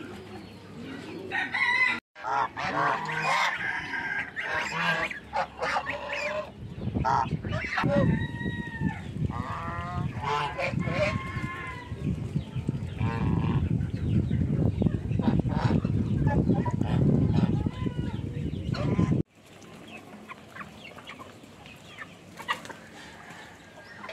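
Several poultry birds calling, a mix of honking calls and clucking, with a steady low rumble under the calls from about seven seconds in. The sound drops off sharply near the end, leaving quieter clucking.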